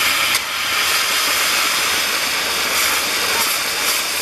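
Maltese ground-firework wheel burning, its fountain tubes giving a loud, steady hiss with a few sharp cracks.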